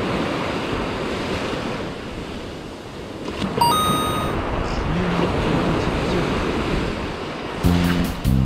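Surf washing up a sandy beach, with wind buffeting the microphone. A short bright chime sounds a little before halfway, and music with a steady beat starts near the end.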